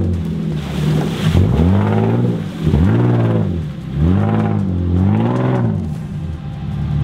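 Competition 4x4 truck's engine revving up and down again and again, about five rising and falling sweeps, as it works its way up a steep bank.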